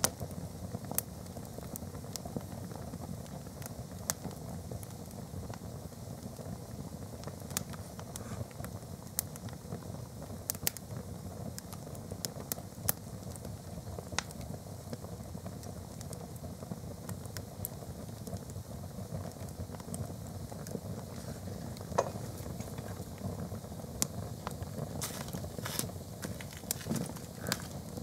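Canvas-and-rubber plimsolls burning in a fireplace grate: a steady low rush of flame with scattered sharp crackles and pops, more of them near the end.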